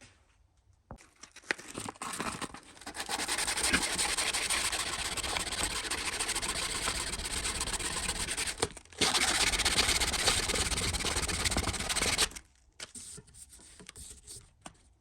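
Power tool abrading the steel of a pair of scissors, a steady grinding rasp. It runs in two spells, the first about six seconds long, then a brief stop and about three seconds more before it cuts off, with light handling clicks before and after.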